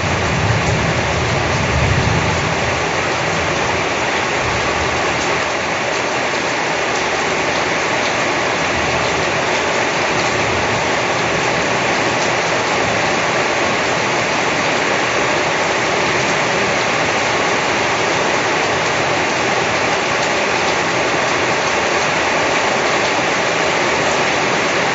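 Steady, heavy rain falling: an even, continuous hiss. A low rumble underneath in the first few seconds fades away.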